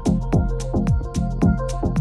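Electronic background music with a steady techno-style beat: kick drums that drop in pitch, several a second, with hi-hat ticks and sustained synth tones.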